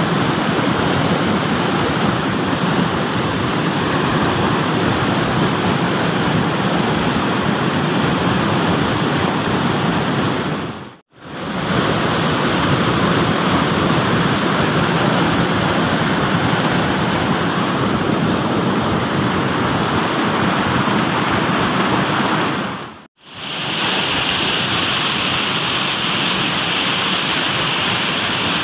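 Fast-flowing river water rushing over rapids, a loud, steady rush that fades out and back twice, briefly.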